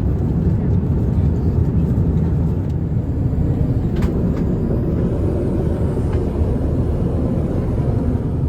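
Steady low rumble of a vehicle in motion, heard from inside, with a faint click about four seconds in.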